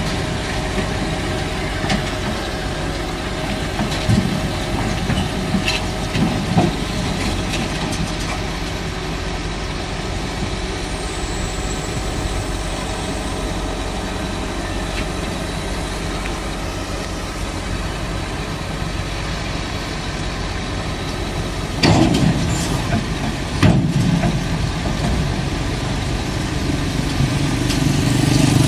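Diesel engine of a SANY SY215C crawler excavator running steadily, with two sharp metallic knocks about three-quarters of the way through.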